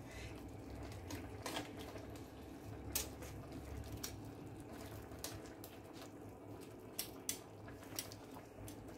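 Metal kitchen tongs clinking now and then against a glazed clay cazuela as pork ribs are moved around in the fava bean stew, a handful of faint sharp clicks over a low steady hum.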